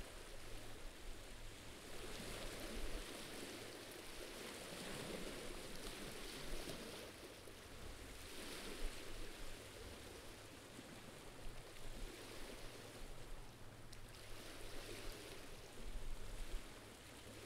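Faint, even wash of gentle sea water lapping at a rocky shoreline, swelling and easing every few seconds.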